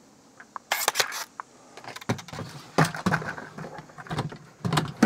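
Handling noise as a posable skeleton is settled into a Halloween casket prop: a short scraping rustle about a second in, then scattered light clicks and knocks.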